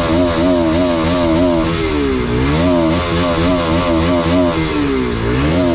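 Bajaj Pulsar RS200 (BS6) single-cylinder engine revved while standing, its pitch rising and falling again and again as the throttle is blipped.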